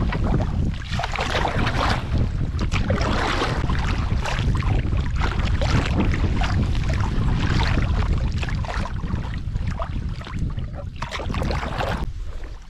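Wind buffeting the microphone with a heavy low rumble, over water splashing as a canoe is paddled into the wind; the wind eases off near the end.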